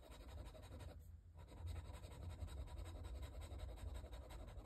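Faint scratching of a pen nib moving across paper, with a brief pause about a second in.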